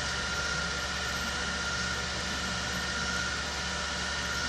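Steady room noise: a constant low hum and hiss with a thin steady whine above it.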